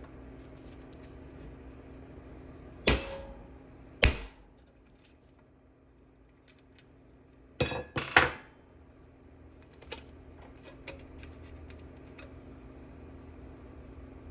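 Metal parts of an old electric toaster being handled and set down: four sharp metallic clanks, two a second apart and then a quick pair, some ringing briefly, with a few lighter ticks, over a steady low hum.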